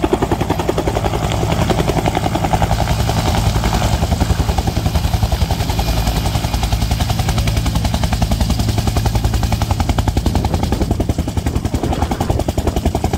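Bell UH-1 Huey helicopter hovering low and settling onto the ground. Its two-bladed main rotor beats in a fast, even pulse over the engine noise.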